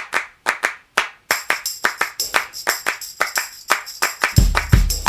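Opening of a music track: rhythmic handclaps, joined about a second in by jingling, tambourine-like percussion, with a deep bass and drum beat coming in near the end.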